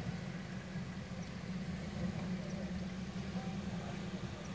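Off-road 4x4's engine idling steadily with a low, even hum.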